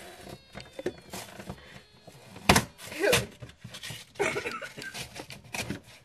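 Irregular small clicks and crackles from rotting rhubarb in a refrigerator, with a louder knock about two and a half seconds in.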